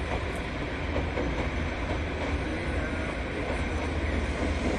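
Diesel locomotive hauling a passenger train across a bridge: a steady low rumble of engine and wheels on the rails, slowly getting louder as it comes closer.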